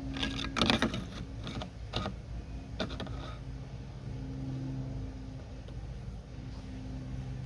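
A few clinks and knocks of metal exhaust pipe parts being handled and fitted back together in the first three seconds, then only a steady low hum.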